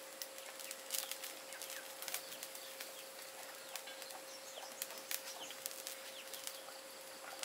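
Birds chirping now and then, with a few sharp light clicks of chopsticks against a ceramic bowl.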